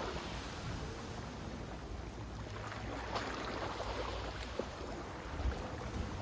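Sea water washing and lapping, a steady rush with small splashes now and then.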